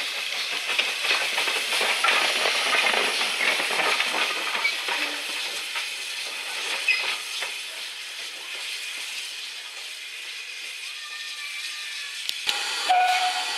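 GWR 1366-class pannier tank steam locomotive running light at low speed, hissing steam with scattered knocks. The sound is loudest a couple of seconds in and fades as the engine moves away. A sharp knock and a brief tone come near the end.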